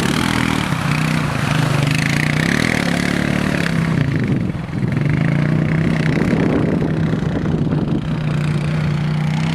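Small ATV engine running as the quad is ridden around, its engine note shifting slightly with the throttle and dipping briefly about four and a half seconds in.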